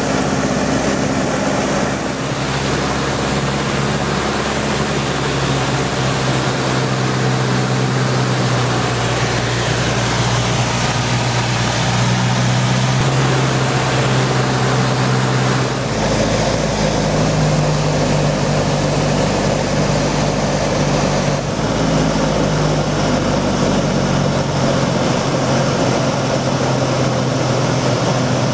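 De Havilland Chipmunk's four-cylinder piston engine and propeller droning steadily in cruise, heard from inside the cockpit with the rush of the slipstream. The engine note shifts suddenly in pitch a few times.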